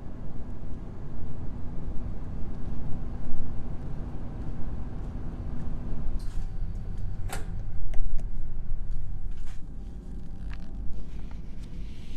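Low, uneven rumbling on a large car ferry's open deck, with a steady machinery hum under it that stops about halfway. Several sharp clicks and knocks come in the second half.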